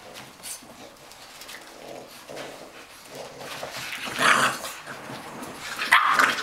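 An adult English bulldog and a bulldog puppy play-fighting, growling and grunting at each other, with two louder sharp outbursts about four and six seconds in.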